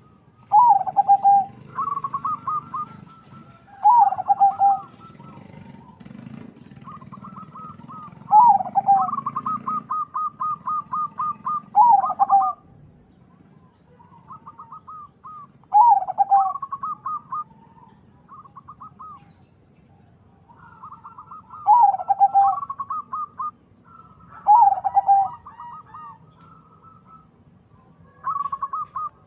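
A zebra dove (perkutut), a local × Bangkok crossbred bird, singing its cooing song over and over. Each phrase opens with a loud falling coo and runs into a quick string of short, even notes, about nine phrases in all.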